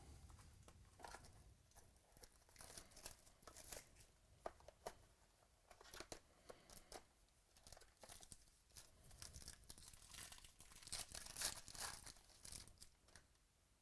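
Faint crinkling and tearing of trading-card packaging as a box and its wrapping are opened, with small clicks and rustles of cards being handled. A denser run of crinkling comes about ten seconds in.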